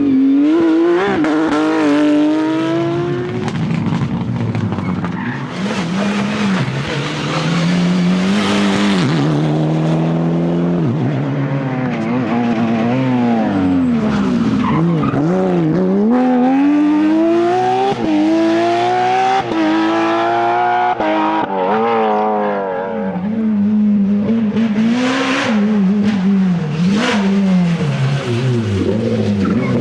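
Rally cars at full stage pace, their engines revving hard and dropping back through gear changes and lifts, the pitch climbing and falling over and over. A few short bursts of rushing noise come in about a third of the way in and again near the end.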